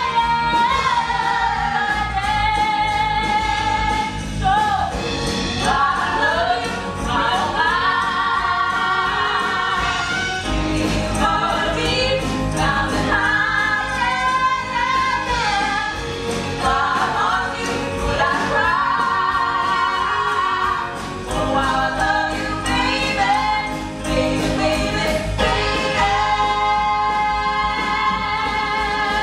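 Women singing with a band, a lead voice holding long notes with vibrato and other voices joining in.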